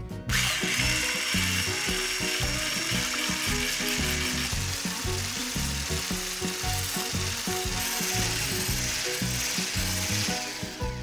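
Electric hand blender with a whisk attachment running in a glass bowl of egg whites, whipping them into foam. It starts just after the beginning with a high motor whine over the first few seconds and stops near the end, with background music underneath.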